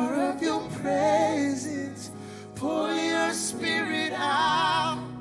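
Worship song: a singer with vibrato over sustained accompaniment chords, in two sung phrases with a short break between them.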